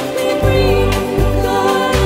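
Music with sustained held tones over a low bass, and a sharp beat about once a second.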